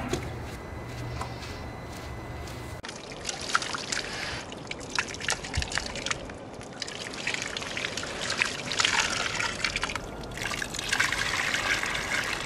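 Water poured from a plastic bucket trickling and splashing onto the soil of a potted plant, starting about three seconds in after a low steady hum.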